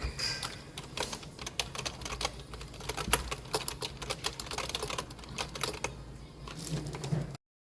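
Typing on an Actto retro typewriter-style wireless keyboard: a fast, uneven run of key clicks, several a second, that cuts off suddenly near the end.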